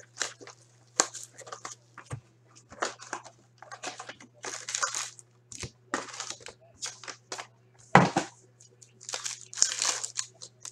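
Upper Deck Trilogy hockey card packs being handled and torn open by hand, their foil wrappers crinkling in a run of short, irregular rustles, with one sharper knock about eight seconds in. A faint steady low hum sits underneath.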